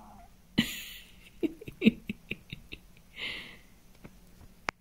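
Korat cat chattering at birds outside: a run of quick clicks and chirps, about five a second, with a short breathy burst before and after it.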